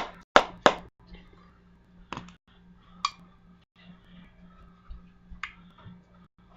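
Sharp taps and clicks from handling a small object: three quick strikes in the first second, then a few scattered single clicks, over a faint steady hum.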